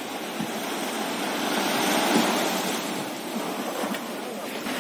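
Small sea waves washing onto a sandy shore, swelling to a peak about two seconds in and then easing off.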